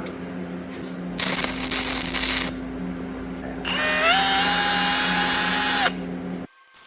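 A handheld power tool's motor spins up with a whine that rises in pitch, holds steady for about two seconds and stops. A second-long hiss comes before it.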